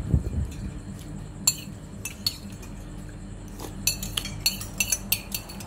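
Spoons and bowls clinking at a meal: a couple of sharp clinks, then a quick run of clinks about four seconds in.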